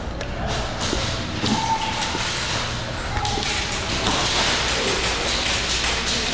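Scattered sharp taps and thuds, consistent with airsoft guns firing in an outdoor game. A hiss of noise comes up about four seconds in.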